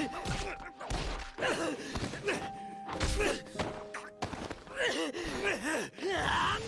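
Fistfight sound effects: several heavy punches landing with dull thuds, the hardest near the start, about a second in and about three seconds in. They come with the fighters' grunts and pained cries, strongest in the second half.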